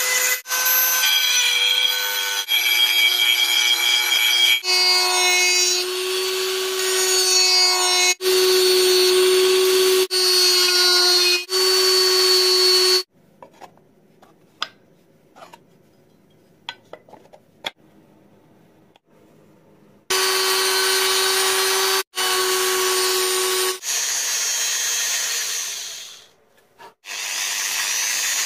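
Dremel rotary tool running at high speed against the brass and oak-veneer edge of a small box, a steady whine with grinding noise, in a series of short runs broken by cuts. About halfway through there is a quieter stretch with only faint handling clicks, and then the tool runs again.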